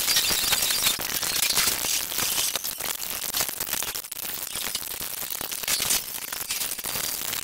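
Cartoon episode soundtrack (voices, music and effects) sped up to many times normal speed, turned into a dense, crackling, hissy chatter.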